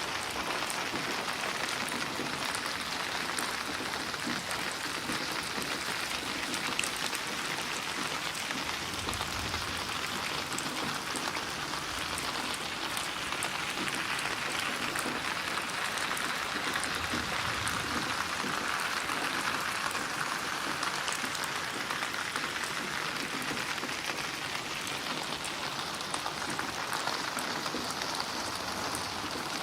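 Steady heavy rain falling on surfaces, a dense even hiss of drops.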